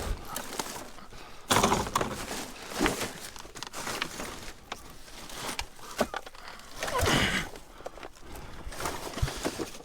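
Junk being rummaged through in a dumpster: scattered knocks and clatters of hard items being shifted, with bursts of rustling and scraping.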